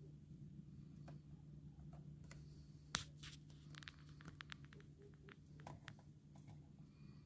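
Near silence in the cabin of a Peugeot 3008 plug-in hybrid sitting in electric Ready mode with the petrol engine off: a low steady hum, one sharp click about three seconds in, then a run of small quick clicks and a few more after. The clicks match the instrument-display controls being worked to scroll through the cluster's display modes.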